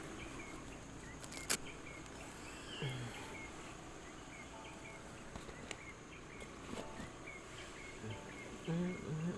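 Faint forest ambience: insects droning steadily at a high pitch, with short chirps repeating every second or so. There is a single sharp click about one and a half seconds in.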